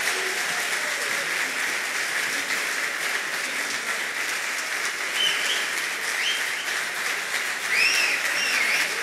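Audience applauding steadily, with a few short whistles from the crowd about five seconds in and again near the end.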